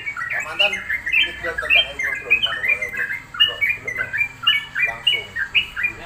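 Caged yellow-vented bulbuls (trucuk) singing and chattering: a fast, continuous run of short bubbly notes, several a second, with a few harsher, lower calls mixed in. The birds hang side by side so that each sets the other singing.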